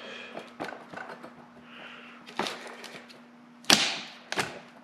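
Metal hand tools knocking and clinking against an M35A2 brake air pack's housing during disassembly: a handful of separate sharp knocks, the loudest one ringing briefly near the end.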